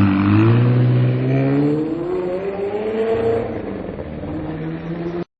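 Ferrari 360's V8 engine revving, its pitch climbing slowly over about three seconds before easing off. The sound cuts off abruptly near the end.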